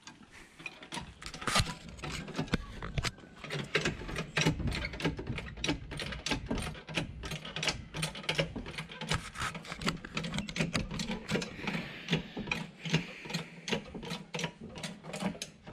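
Rapid, steady run of metallic ratcheting clicks and rattles from a hand-worked tool on a car, over a steady low hum.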